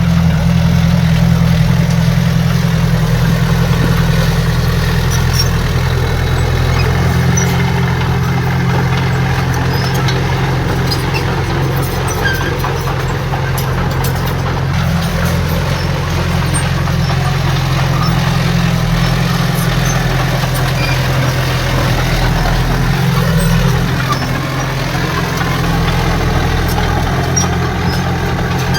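Heavy diesel engine of earthmoving equipment running steadily at a low, even drone.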